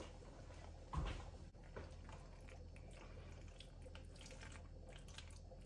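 Faint wet squelching of a spatula stirring thick cheese sauce into cooked elbow macaroni in a casserole dish, with one low knock about a second in.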